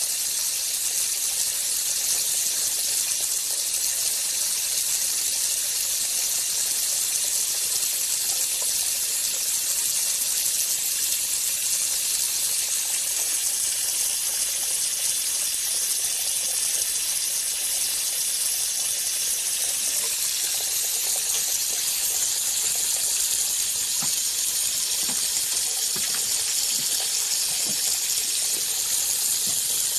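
Steady, high hiss of rushing noise that holds an even level throughout.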